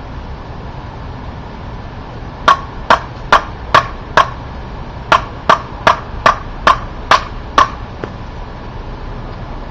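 A homemade Montero bushcraft knife chopping into dead wood: a quick run of five sharp strikes, a short pause, then seven more, about two or three a second.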